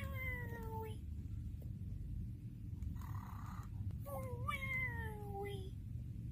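Cartoon snoring of the animated Nick Jr. character Face: two long whining tones that slide downward in pitch, one at the start and one about four seconds in, with a short breathy intake between them, over a steady low hum.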